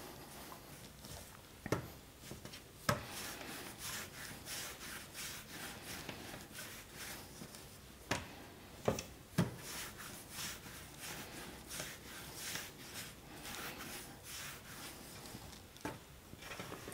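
Hands rolling strands of yeast dough back and forth on a floured worktop, a run of repeated rubbing strokes. A few sharper knocks come in between as strands are picked up and set down on the counter.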